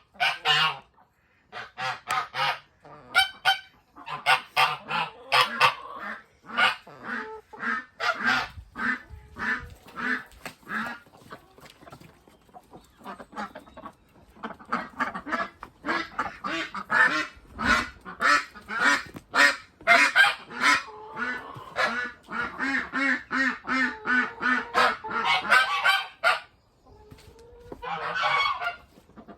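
A flock of domestic ducks quacking loudly and rapidly, many in unison: their alarm call, which is 'hey mum, come and see what's the matter'.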